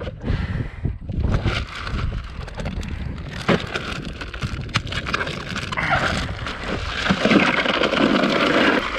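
A plastic bag of ice being torn open and poured into a cooler over a fish: crinkling plastic and rattling, crunching ice. It grows denser and louder over the last few seconds as the ice pours out.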